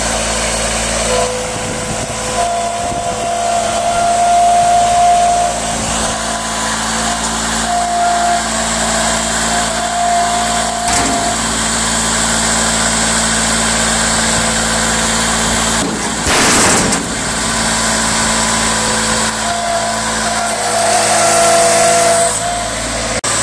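Bobcat S70 skid-steer loader's small three-cylinder diesel running and revving as it drives and lifts a bucket of dirt, with a hydraulic whine that rises and falls as the lift arms and bucket are worked. A short rush of noise about two-thirds of the way through.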